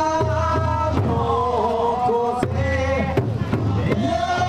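Festival music with voices chanting in long held notes over crowd noise.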